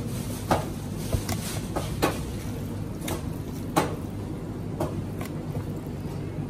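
Gloved hands handling marinade-coated lamb steaks, with scattered soft slaps and knocks as steaks are pulled from a plastic bowl and laid in a plastic tub, about every second. A steady low hum runs underneath.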